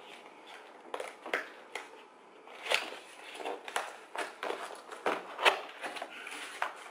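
A knife cutting open a cardboard box, with irregular scrapes and clicks as the blade slits the tape and the box is handled.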